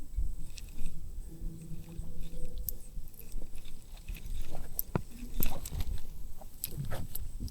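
Close handling noise while fighting a hooked fish: irregular clicks, knocks and rubbing, with a faint low hum for a couple of seconds early on.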